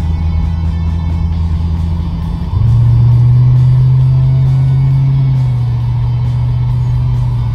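C4 Corvette's V8 running through a muffler-delete exhaust, heard from inside the cabin at low speed: a steady deep drone. About two and a half seconds in, the drone steps up in pitch and loudness as the revs rise under throttle, then holds.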